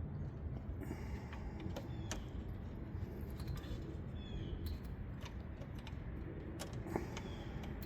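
Light, irregular metal clicks and taps of needle-nose pliers working a plastic shifter-cable bushing onto its stud, over a low steady rumble.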